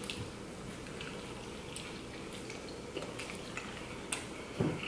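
Faint sounds of people chewing pizza: a few soft, wet mouth clicks scattered over a quiet room.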